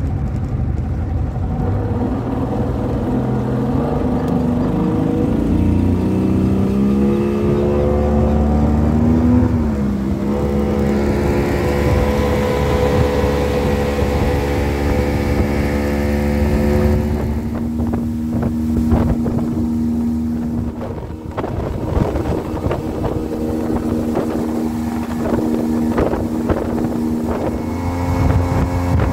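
Motorboat engine speeding up, its pitch rising over the first several seconds, then running steadily at cruising speed, with wind on the microphone and water rushing past the hull.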